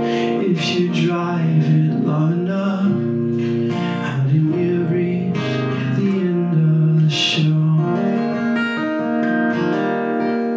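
Acoustic guitar strummed and picked in a live song, with a bass line stepping between notes under the chords.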